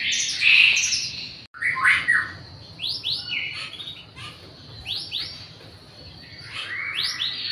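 Young male white-rumped shama (murai batu) in a cage giving a series of short harsh calls, each opening with a quick upward sweep, every second or two: the rattling 'ketrekan' call.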